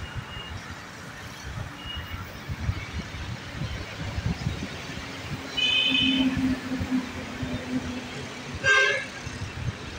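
Wind buffeting the microphone throughout. A vehicle horn sounds about five and a half seconds in and holds for about two and a half seconds, and a short, louder honk comes near the end.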